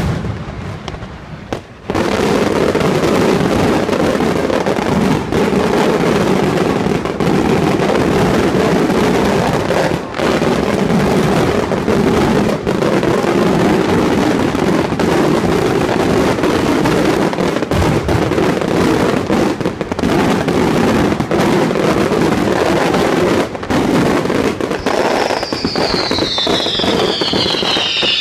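Daytime aerial fireworks going off in a dense, continuous barrage of rapid bangs and crackling, starting about two seconds in. Near the end several whistles fall in pitch over the crackling.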